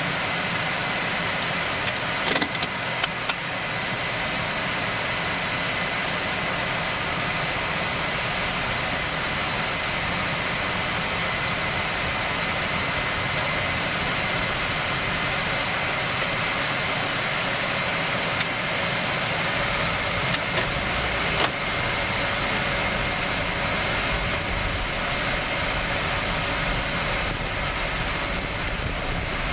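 A 2016 Honda Vezel RS driving along, heard as a steady wash of road and wind noise with a faint steady whine. A few light clicks come around two to three seconds in and again around twenty seconds in, and a low rumble grows from about twenty seconds in.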